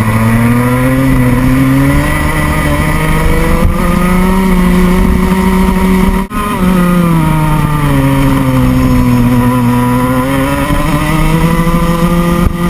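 Onboard sound of a Rotax Junior Max kart's 125cc two-stroke single-cylinder engine at racing speed. The pitch climbs for about five seconds and cuts out briefly about six seconds in. It then falls as the kart slows for a bend and climbs again near the end.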